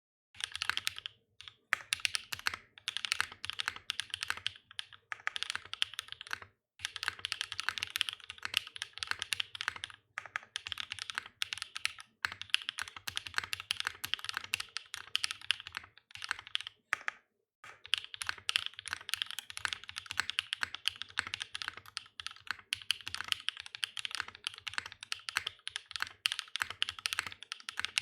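Fast typing on a Haus custom mechanical keyboard in top-mount layout with factory-lubed Red Jacket linear switches (nylon housings, long-pole POM stems) and no dampening: rapid key clacks in long runs, broken by several short pauses.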